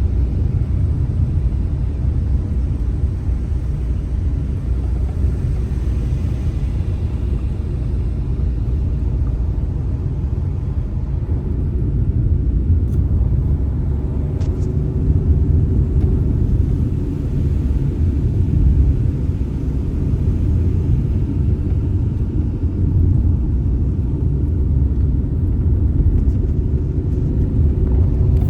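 A car driving along the road: a steady low rumble of engine and tyre noise, with a couple of faint clicks midway.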